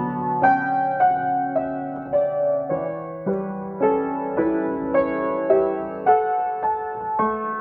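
Acoustic piano played in a slow, gentle improvisation. A new note or chord is struck roughly every half second over sustained lower notes, each ringing on into the next.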